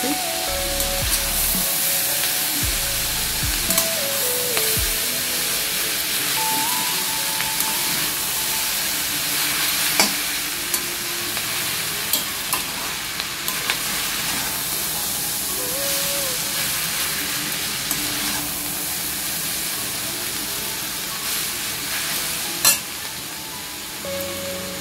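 Noodles and vegetables sizzling in a steel wok while being tossed and stirred with a metal spatula, with a steady frying hiss. The spatula clicks against the pan now and then, most sharply near the end.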